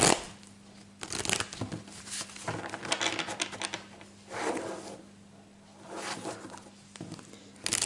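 Tarot deck shuffled by hand on a wooden table: a riffle ending in a bridge at the start, then several short bursts of cards sliding and clicking against each other, with a louder burst near the end.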